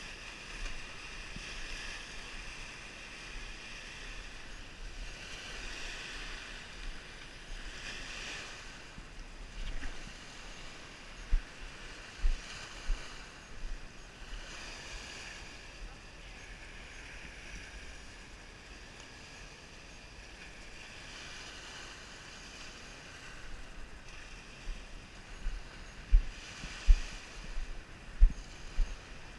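Small Lake Michigan waves washing onto a rocky shoreline, a steady hiss that swells and fades every few seconds. Low thumps stand out at times, coming thick near the end.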